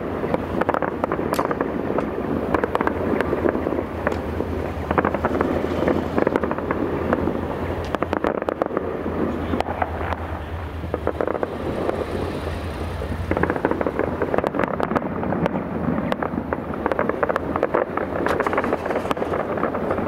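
Fireworks display: a dense, continuous run of bangs and crackling from bursting aerial shells, easing a little past halfway and then growing busier again.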